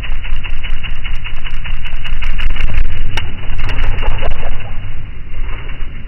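Hummingbird giving rapid, sharp chipping calls, many a second, over a low hum; the chips stop about four and a half seconds in.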